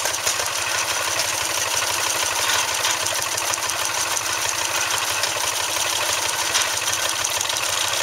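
Antique steam engine driving a stationary straw baler through a long flat belt, the machinery running with a steady mechanical noise.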